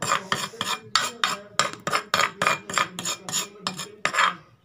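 Steel spoon grinding and scraping green chillies and salt into a paste against the inside of an earthen clay bowl: quick rasping strokes, about four a second, stopping briefly near the end.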